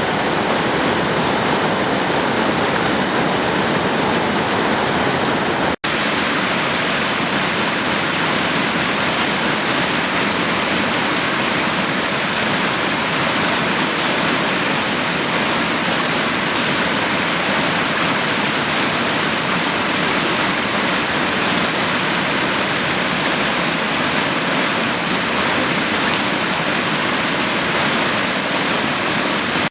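Spring floodwater rushing in a loud, steady torrent, cutting out for an instant about six seconds in.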